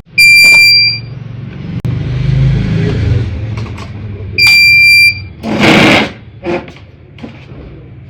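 A 700 VA UPS's buzzer beeping twice, each beep a steady high tone about two-thirds of a second long, about four seconds apart, over a low hum. A loud, short noise and a few fainter knocks follow the second beep.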